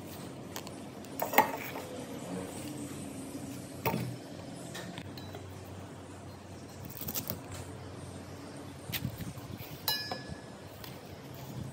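Kitchen handling sounds as bananas are peeled and cut with a serrated knife over a stainless steel bowl: a few scattered clinks and knocks, the loudest about a second in, and one near the end that rings briefly like metal.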